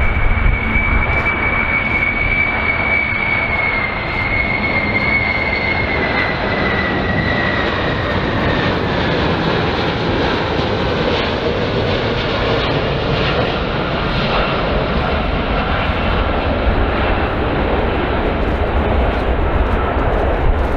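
Boeing 747-2G4B (VC-25A) on landing approach, its four General Electric CF6 turbofans running with a steady low rumble under a high whine. The whine slides down in pitch over the first several seconds.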